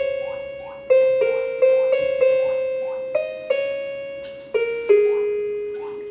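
Casio electronic keyboard on its harp voice playing a slow melody one note at a time. There are about nine notes, each struck sharply and then fading away.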